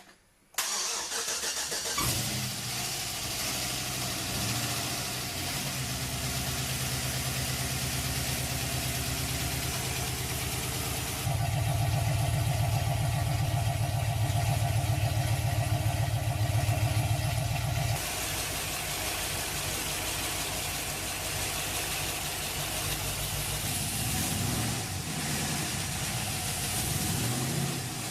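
Chevrolet 5.3 L LS V8 with a stage 2 cam, ported heads and long-tube headers cranking briefly and catching about two seconds in on its first start after the cam and heads install, then idling with a steady pulsing beat. The idle rises and runs louder from about eleven seconds in and drops back about seven seconds later.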